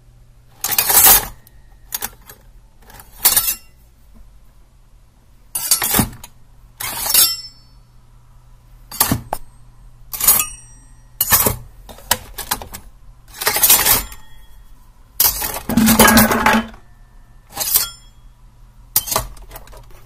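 A large kitchen knife making a series of about a dozen separate metallic scrapes and clinks, one to two seconds apart, some ringing briefly. The longest scrape comes about sixteen seconds in. A faint low hum runs underneath.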